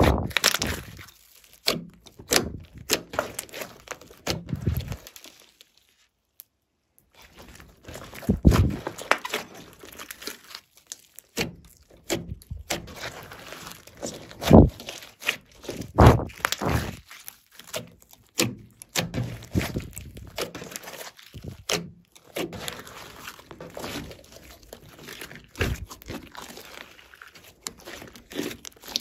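Slime being squeezed, stretched and kneaded by hand: sticky squelches with irregular crackling pops, the loudest about halfway through. A brief silent gap comes about six seconds in.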